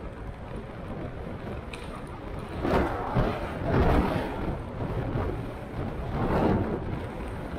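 Steady wind and road noise on a camera riding on a moving velomobile. Louder swells come about three to four seconds in and again near the end as motor traffic passes close by.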